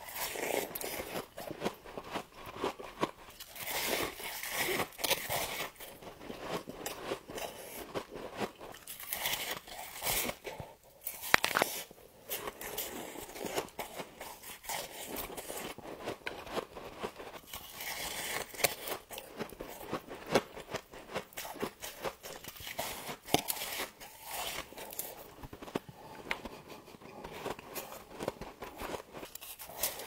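Biting and chewing chunks of humidifier frost close to a clip-on microphone: near-continuous crisp crunching made of many small crackles and sharp snaps, with a brief lull about eleven seconds in.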